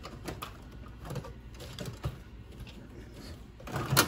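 Light clicks and clatter of small tools and parts being handled on a workbench, with a sharper, louder knock near the end.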